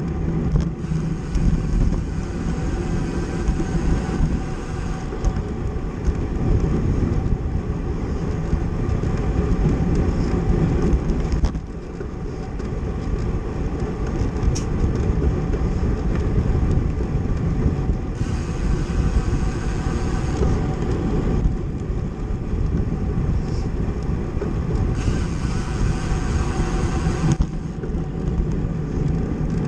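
Wind rushing over the microphone with road rumble from a bicycle ridden at race speed in a criterium bunch; the noise drops briefly about twelve seconds in.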